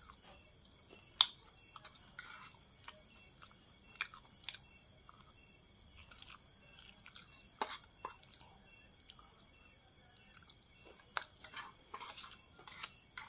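A person eating Maggi instant noodles: close, wet chewing, broken by scattered short sharp clicks and smacks, the loudest about a second in and several bunched near the end.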